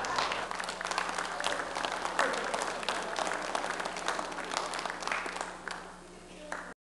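An audience applauding, many hands clapping together; the clapping thins out near the end and then cuts off abruptly.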